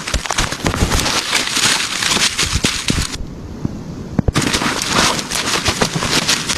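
Wood fire crackling and popping up close: dense, irregular snaps over a hiss, dropping away for about a second partway through before resuming.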